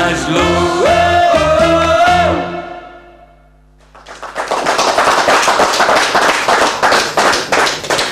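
A male singer and a small band with accordion finish a song, the last sung note held and then fading out near the three-second mark. After about a second of hush, the studio audience breaks into applause that carries on to the end.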